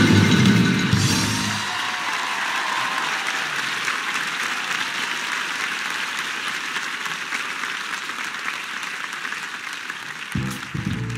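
A band's last chord ends a song about a second and a half in, and the audience applauds. Near the end a double bass starts playing the next tune.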